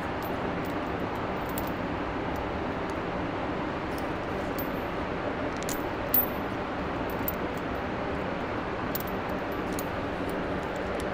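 A steady mechanical drone, with light metallic clinks of steel tire-chain links and a hook connector being handled; one clink about six seconds in is a little louder.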